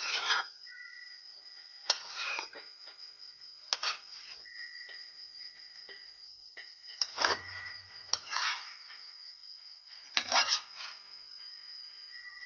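A metal spoon scraping and knocking against a cooking pot as chicken adobo is stirred, in about six short strokes a second or two apart, over a steady high-pitched trill like crickets.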